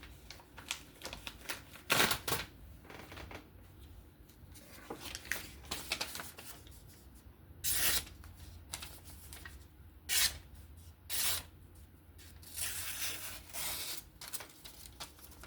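Folding-knife blade slicing through paper in a series of short rasping cuts, a sharpness test for snags along the edge.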